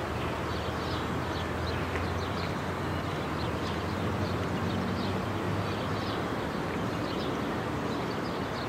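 Outdoor ambience: a steady low rumble with small birds chirping briefly here and there.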